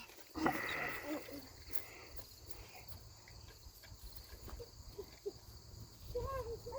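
Crickets chirring steadily, with a brief handling noise about half a second in.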